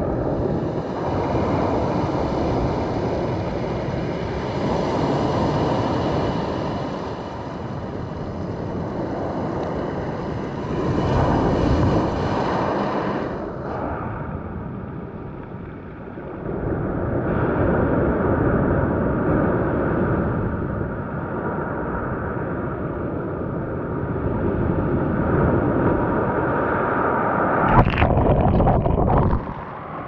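Sea waves breaking and washing up over a pebble beach, the surf swelling and falling every few seconds. Near the end a wave surges right up to the microphone with a sudden loud splash, then briefly drops away.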